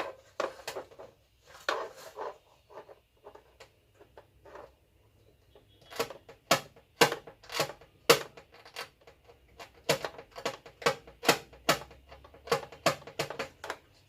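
A run of sharp clicks and taps from hand-tool work on a TV's LED backlight strip, as the positive connection is scraped or picked free. The clicks are scattered at first, then come stronger at about two a second from about six seconds in.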